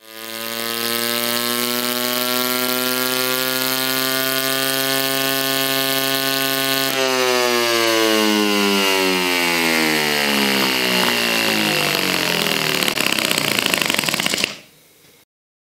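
Homemade 6.5 cc single-cylinder four-stroke methanol glow model engine with a rotary valve, running at a steady high speed on the test bench. About halfway through its speed starts to fall steadily and it runs rougher, then the sound cuts off suddenly near the end.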